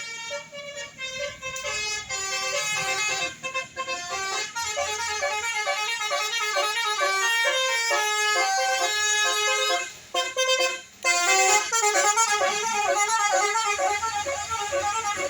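Bus 'telolet' multi-tone air horn playing a quick melody of stepping notes, with repeated up-and-down runs and a short break about ten seconds in.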